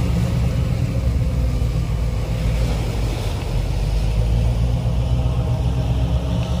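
Car ferry's engines running with a steady, loud low rumble as the ship manoeuvres to dock.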